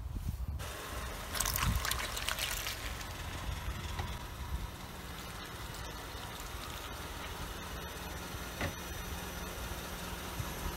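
A car tyre rolling onto a block of green gelatin jelly and squashing it, with a wet squelch and splatter about one and a half seconds in, then a steady wet hiss.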